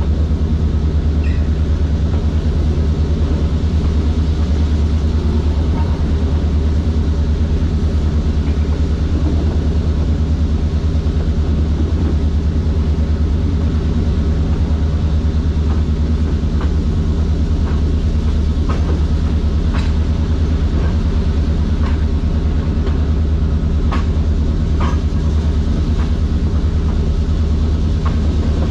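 CF7 diesel locomotive's EMD 567 prime mover running steadily under load as the train works up a grade, heard from close above the engine. It makes a constant deep hum.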